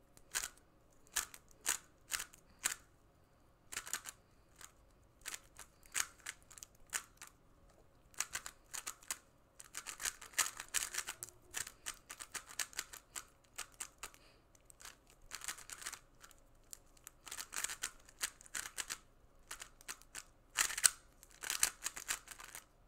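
A stickerless 3x3 speedcube being turned fast by hand during a speedsolve: runs of rapid plastic clicking from the layer turns, broken by short pauses.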